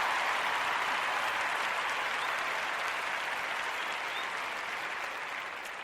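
Crowd applause, a dense even patter of clapping that gradually fades away.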